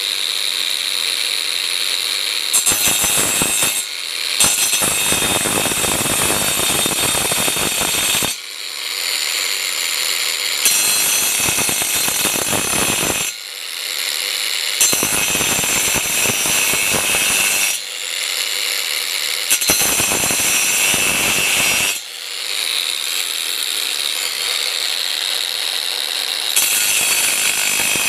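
Angle grinder with a metal, wood and concrete cutting blade cutting into a metal spacer tube clamped in a vise, in about six passes of a few seconds each. Between passes the motor runs free with a steady high whine.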